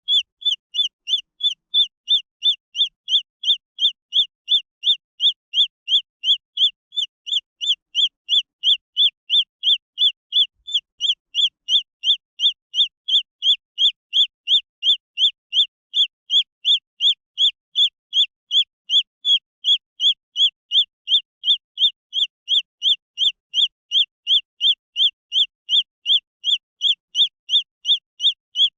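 Green junglefowl chick peeping: a long, very even series of short, high-pitched peeps, about two and a half a second.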